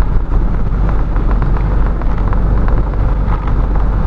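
VW 8-150 truck's diesel engine running at a steady cruise, a continuous low drone heard from inside the cab, with the hiss of tyres on a rain-soaked road and faint scattered ticks.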